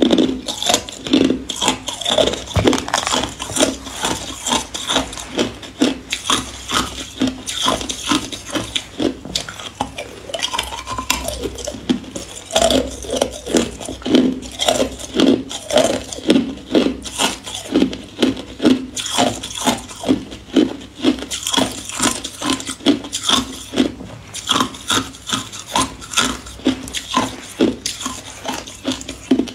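Hard ice cubes being bitten and crunched between the teeth close to the microphone, in a steady run of crunches about two a second.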